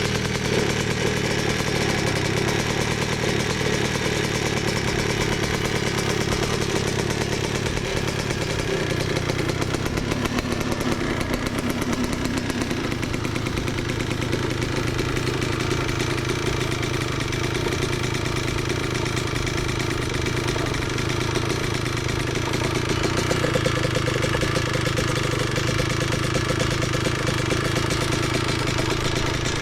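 Big-bore Yamaha Blaster 200's single-cylinder two-stroke engine idling steadily while it warms up, its pitch shifting slightly near the middle.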